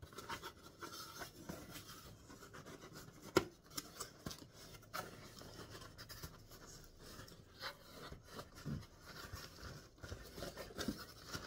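Cardboard shipping box being opened by hand: faint scraping and rubbing of the flaps, with scattered clicks and a sharper crack about three and a half seconds in.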